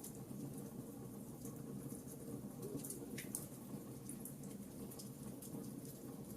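Wood fire burning in a fireplace, a steady low rumble of flames with scattered small crackles and pops, and one louder crack about three seconds in.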